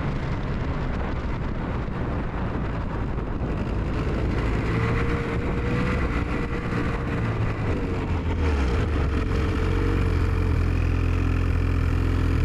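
Ski-Doo Expedition Xtreme snowmobile running along a trail, its engine note rising and falling with the throttle and growing a little louder about eight seconds in.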